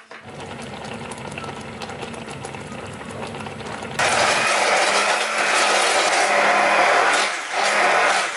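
Electric kitchen appliance motor, such as a blender or mixer, switched on and running steadily, then stepping up to a louder, higher speed about four seconds in, with a couple of brief dips near the end.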